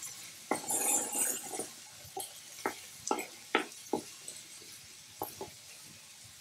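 Minced shallots scraped off a cutting board into a skillet with a knife, a brief sliding scrape, followed by about seven sharp clinks as the knife blade is tapped to knock off the clinging pieces.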